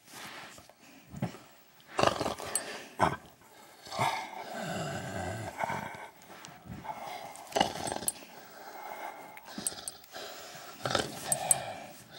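A dog vocalizing in a series of growly moans, with the longest drawn out for about two seconds from around four seconds in, and shorter ones before and after.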